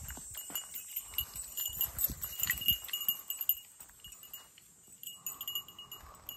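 Footsteps swishing through long grass, with repeated high-pitched chirping over them.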